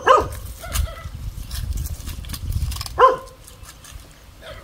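A dog barking: one bark right at the start and another about three seconds in, over a low rumble.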